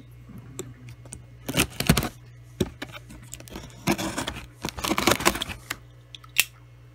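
Packing tape being torn and cut off a cardboard shipping box, in several irregular tearing bursts with crinkling, the longest about four to five seconds in.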